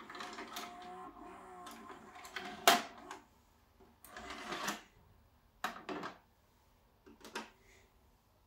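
Samsung SV-221X VHS video recorder's tape mechanism whirring and clunking, with a sharp click about two and a half seconds in, then ejecting a cassette: a whir after the eject button is pressed about four seconds in, followed by a few mechanical clicks as the tape is pushed out.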